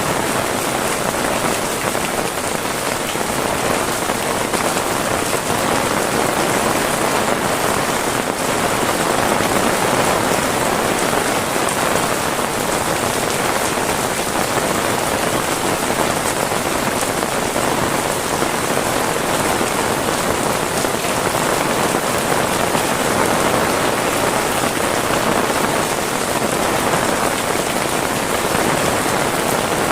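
Heavy rain falling steadily on surfaces.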